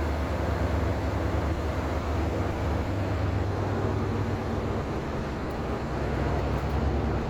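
Car-passenger ferry's engines running, a steady low rumble with a constant hiss above it.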